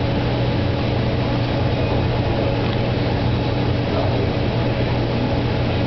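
A steady, unbroken low hum with a constant drone and a layer of noise over it, like a small mains-powered motor or pump running.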